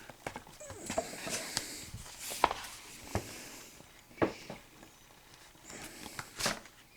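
Blu-ray digibook packaging being handled: a scattering of light clicks and taps with short stretches of paper-like rustling as it is moved and its pages turned.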